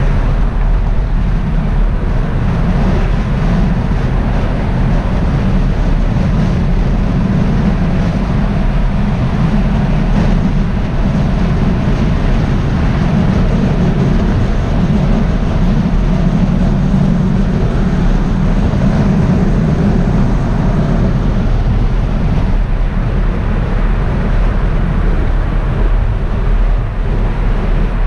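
Steady in-cabin noise of a car driving at speed: a constant low engine and road rumble with wind noise.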